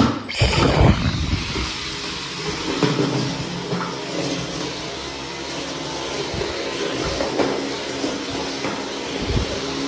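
Dyson V15 Detect cordless stick vacuum switching on suddenly and then running steadily, a thin high whistle over its rushing noise, with a few low thumps.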